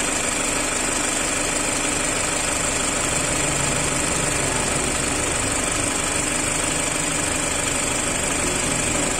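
Mazda CX-3 idling, with its electric radiator cooling fan spinning steadily in the shroud. The fan motor, just repaired for a noise, runs smooth.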